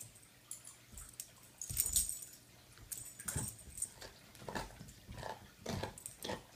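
A dog playing on a carpet: a louder scuffle about two seconds in, then a string of short, separate dog noises as it paws at a moth and rolls on its back.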